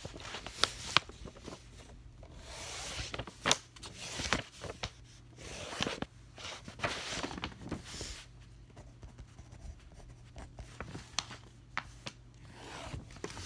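Close handling noises: irregular scraping and rubbing swishes with several sharp clicks and taps.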